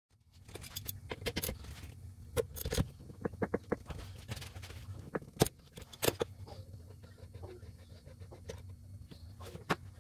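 Hand tools clicking and clinking as a ratchet and socket loosen the 17 mm banjo bolt on a fuel filter line: irregular sharp metallic clicks, some in quick clusters in the first few seconds, then single clinks later.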